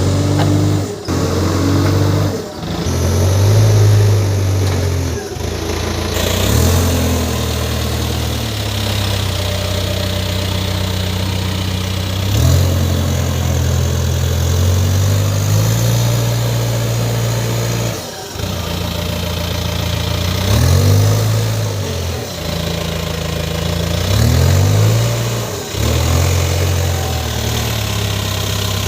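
Diesel engine of a JCB 3DX backhoe loader working, its revs repeatedly rising and falling as it digs and loads.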